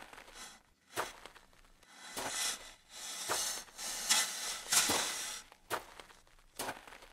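Footsteps crunching on railway gravel ballast: a string of irregular crunches with a few sharp clicks between them.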